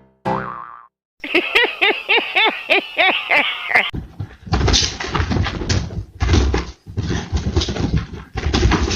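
A cat calling in a quick run of short rising-and-falling cries, about three a second, followed by several seconds of rough, noisy bursts.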